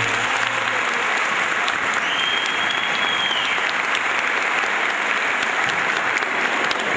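Audience applauding steadily as the dance music ends, with a high steady whistle-like tone about two seconds in that lasts over a second.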